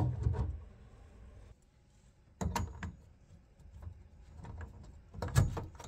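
Metal clicks and knocks from a spanner and brass pipe fittings being handled: a few separate knocks, the loudest near the end.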